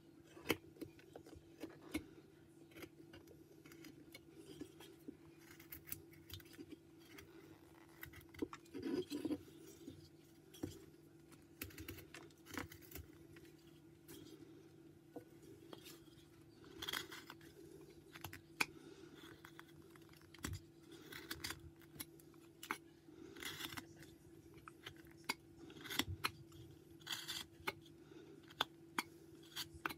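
Carving knife slicing and paring white pine in short, irregular cuts, with clicks and scrapes of blade and wood and a few longer drawn strokes. A faint steady hum sits underneath.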